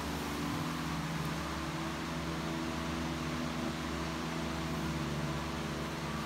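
A steady machine hum with an even hiss over it, unchanging throughout, like a fan or small motor running.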